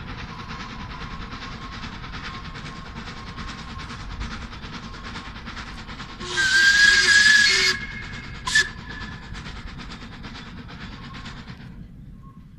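Narrow-gauge steam locomotive blowing its whistle: one long blast with a rush of steam, then a short toot a moment later, over the steady running sound of the passing train, which drops away near the end.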